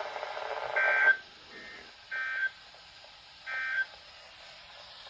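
NOAA Weather Radio broadcast: the synthesized announcer's voice ends about a second in, followed by three short bursts of buzzy digital SAME data tones about 1.3 s apart, the end-of-message signal that closes a flood warning.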